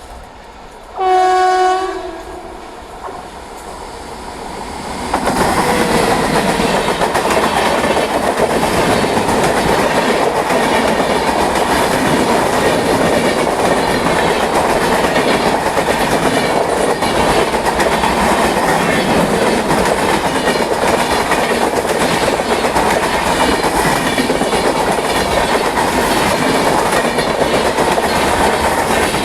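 Indian Railways locomotive twin-tone horn sounding once about a second in, a higher note stepping down to a lower one. From about five seconds in, a train passes close by at speed, its wheels clattering loudly and steadily over the rail joints.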